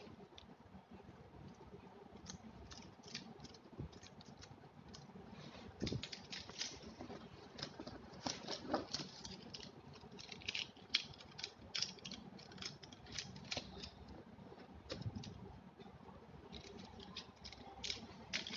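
Plastic pens and pencils clicking and tapping against each other as they are handled and pulled out of a school backpack, in irregular light clicks with a little rustling.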